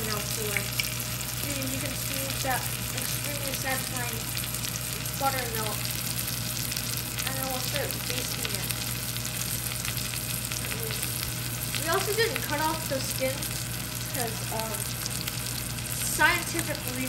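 Swordfish steak and melting butter sizzling in a cast iron skillet: a steady frying hiss full of fine crackles.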